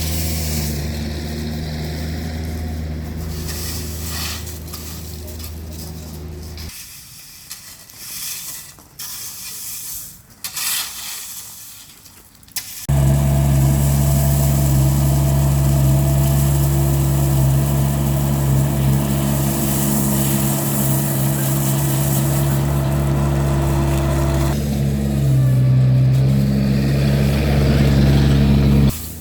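Vermeer mini skid steer's engine running steadily. It drops away about 7 s in, leaving a quieter stretch with a few knocks, then returns louder about 13 s in. Its pitch shifts briefly a few seconds before the end.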